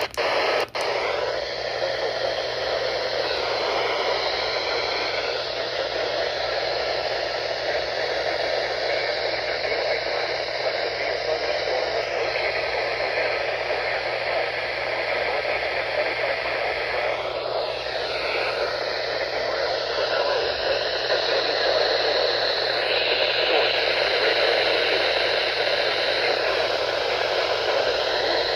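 Radio receiver hissing with steady static after the broadcast audio has dropped out, faint wavering tones drifting through the noise. There is a click just after the start.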